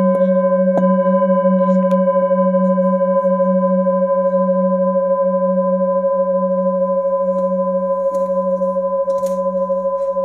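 Polished metal singing bowls struck with a wooden mallet: a second bowl is struck about a second in and joins one already ringing. Both ring on as a long chord of several tones with a slow wavering beat.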